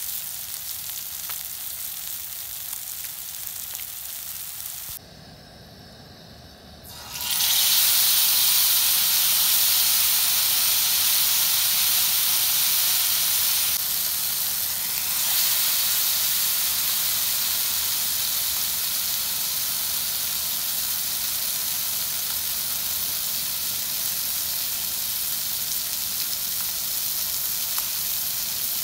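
Masala-coated fish slices sizzling in shallow oil in a frying pan: a steady hiss that drops away for about two seconds around five seconds in, then comes back louder.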